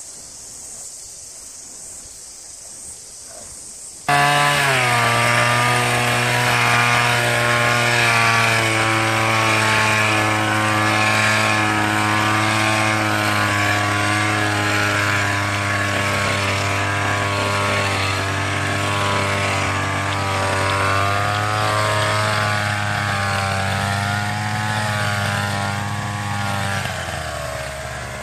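Petrol hedge trimmer's two-stroke engine running at steady high revs while trimming. It starts abruptly about four seconds in, and near the end the revs drop away.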